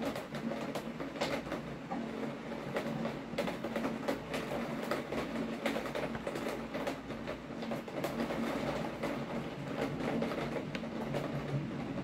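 Steady rain with many irregular, close drops tapping, over a low steady hum.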